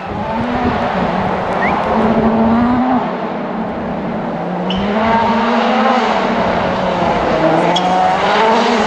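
Rally car engine revving hard up through the gears, its pitch climbing and dropping sharply at each gear change, about three times, with road and tyre noise underneath.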